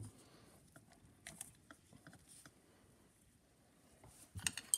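Faint scattered clicks of hand tools and metal motor parts being handled, with a quick cluster of louder sharp clicks and clatter near the end.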